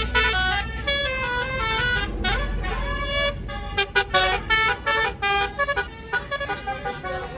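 Tour bus's telolet basuri horn playing a fast melody of short, pitched notes that jump from one to the next, over a low engine rumble.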